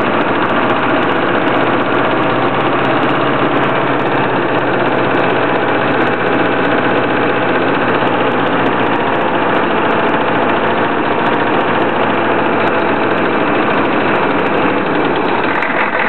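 1993 Chevy 6.5-litre turbo diesel V8 running steadily with the throttle held a little above idle. At this speed it runs smoothly, clear of the rough, shaking idle it has lower down.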